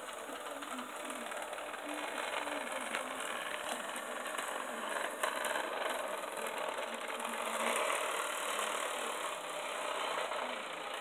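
Hornby Class 395 model train running on its track: a steady whir from its small electric motor with the rattle of wheels over the rails and a few sharp clicks.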